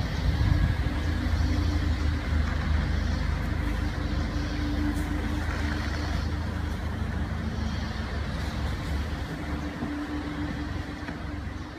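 A motor vehicle's engine idling nearby, a steady low hum that eases off near the end.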